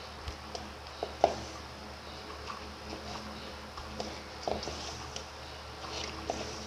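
Hands kneading stiff flour-and-oil samosa dough in a stainless steel bowl: scattered soft knocks and clicks of fingers and dough against the metal, the sharpest about a second in, over a steady low hum.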